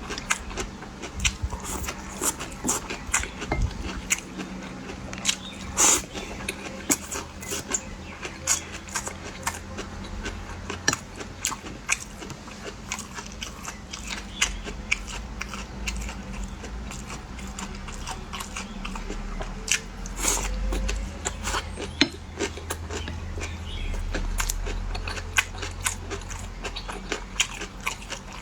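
Close-miked eating sounds: a person biting and chewing food, with many short, sharp mouth clicks throughout.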